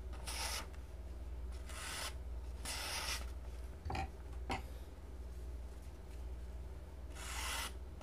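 A folding knife's blade, a copy of the Spyderco Sub-Hilt Vallotton, slicing through a sheet of paper in a sharpness test: four short hissing cutting strokes, with a couple of light ticks midway. The cuts sound fairly smooth; the edge is passable, and could be sharper.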